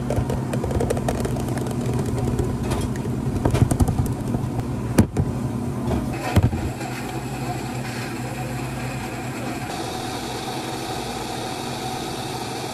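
Commercial blender motor running steadily while blending a taro smoothie, with a couple of sharp knocks around the middle.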